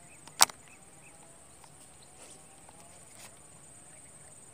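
A steady high-pitched insect drone, with one sharp click about half a second in and a few faint ticks and short faint calls after it.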